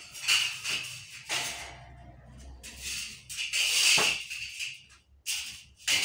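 Long steel sawmill band saw blade rattling and scraping in irregular bursts as it is uncoiled and flexed by hand, loudest about two-thirds of the way in.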